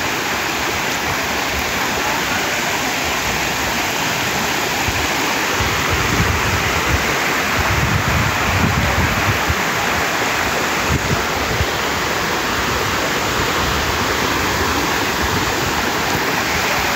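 Water overflowing a reservoir dam's spillway gates and sheeting down the concrete face: a loud, steady rush, with heavier low rumbling about midway.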